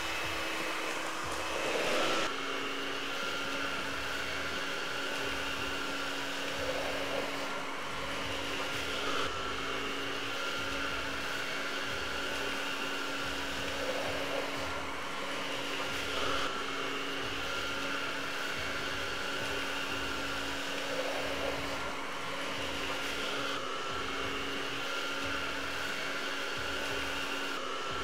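Miele Triflex HX1 cordless stick vacuum running on its highest suction setting, a steady motor hum and airflow hiss as the powerhead picks up ground coffee from a bare floor.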